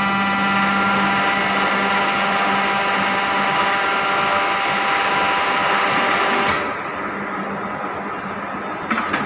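Vertical hydraulic baling press running, its pump giving a steady whine over a low hum that cuts off about two-thirds of the way through, leaving a quieter hum. A few sharp clacks come near the end.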